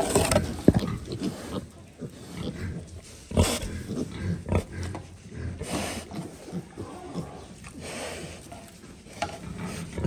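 A group of young piglets grunting irregularly as they root through the bedding for pig starter feed, with a couple of louder sudden sounds in the first second.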